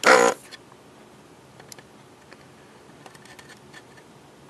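A short, loud voice-like sound right at the start, then faint scattered ticks and clicks of a soldering iron tip working along a circuit board's chip pins.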